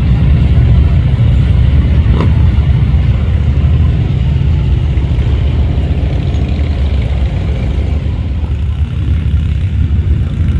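Motorcycle engines running loud and steady, a deep continuous engine sound, with a short sharp click about two seconds in.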